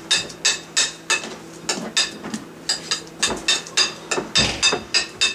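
Repeated light metallic clinks, irregular, about two or three a second, each with a brief ringing tail, over a faint steady hum.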